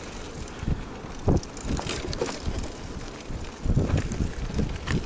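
A homemade bicycle rolling over asphalt, with wind buffeting the microphone and a few light rattles from the bike. The rumble swells louder near the end.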